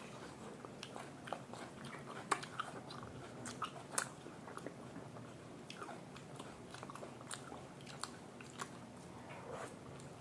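Chewing and biting food, with irregular wet mouth clicks and smacks; two sharper clicks stand out, about two seconds and four seconds in.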